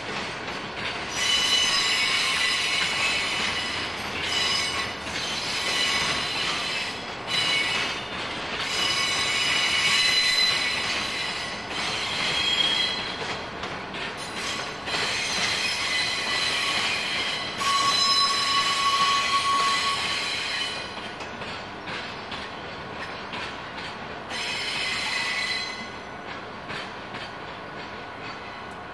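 Container freight train's wagons rolling past, with high-pitched wheel squeal that comes and goes in repeated bursts over the rolling rumble. The squealing eases off near the end, leaving a quieter, steadier rolling sound.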